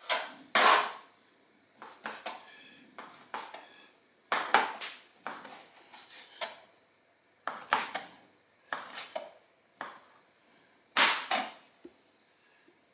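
A dull kitchen knife slicing raw beef steak on a plastic cutting board: irregular knife strokes and taps of the blade on the board, about a dozen spread out with pauses between, the loudest right at the start and about 11 seconds in.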